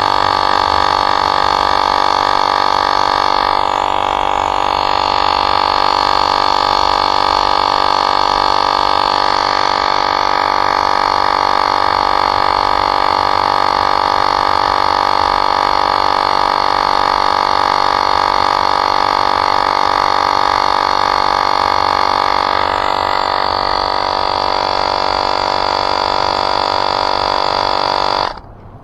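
Portable electric tire inflator running with a steady buzzing drone while pumping up a bike tire, switched off abruptly near the end.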